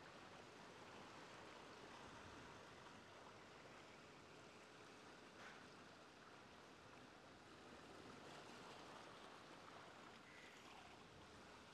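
Very faint, steady wash of ocean waves.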